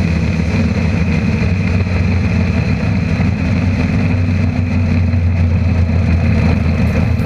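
Engine of a Ford Popular drag car running at a fairly steady pitch as the car drives on, heard from inside its stripped cabin.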